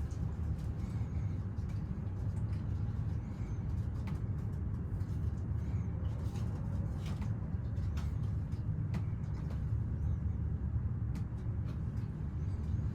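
Elevator car travelling in its shaft: a steady low rumble with a faint rush of air and a few light clicks.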